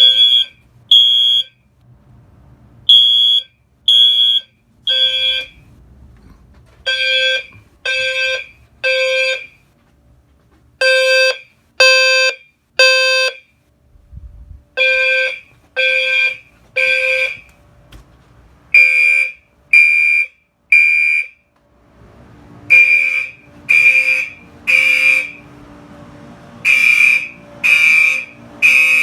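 Fire alarm horns sounding together with a low-frequency sounder in the temporal-3 evacuation pattern: three loud blasts about a second apart, then a pause, repeating. The first few blasts are uneven before the devices fall into step. A low steady hum joins near the end.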